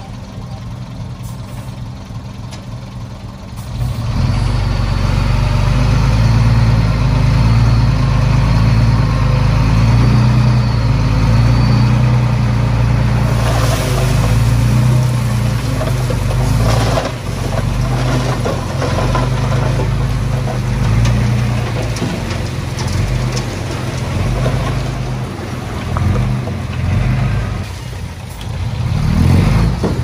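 Diesel engine of heavy earthmoving machinery running, quieter at first and then louder and steady from about four seconds in. A burst of rougher, hissing noise comes around the middle, and the revs rise briefly near the end.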